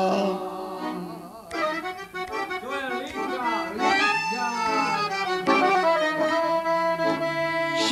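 Piano accordion playing a melody with chords, filling out noticeably about a second and a half in.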